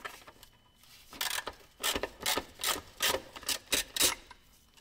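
Ratchet wrench worked in quick back-and-forth strokes on a bolt, about ten short rasping ratchet bursts at roughly three a second, starting about a second in.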